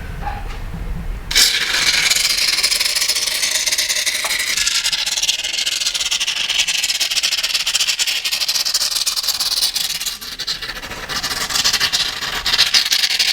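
Aerosol can of Great Stuff Window & Door expanding foam spraying: a steady, sputtering hiss that starts suddenly about a second in.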